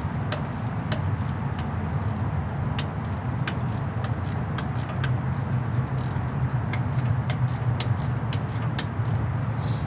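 Hand tools clicking and clinking against metal in quick, irregular ticks while the driveshaft is unbolted to reach its worn center support bearing, over a steady low hum.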